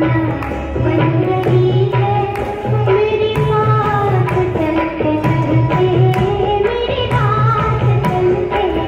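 Indian song played loud for dancing: a wavering sung melody over hand drums with a steady, driving beat.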